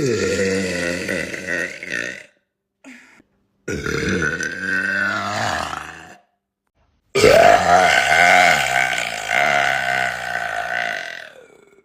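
A woman burping three times in a row, each burp long and drawn out. The last one is the loudest and lasts about four seconds.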